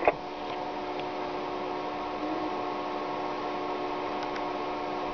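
Steady low hum with several faint steady tones over a light hiss, and a few faint ticks, from the amateur radio receivers and station cooling fan while the ISS downlink is silent between answers.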